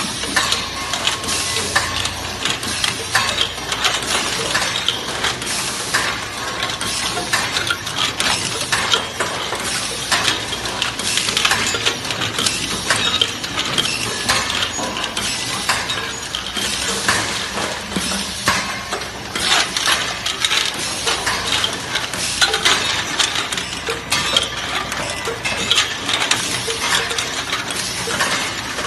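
JGF-C-502 automatic tube filling machine running: a continuous, dense metallic clatter of rapid clicks and clinks from its mechanism.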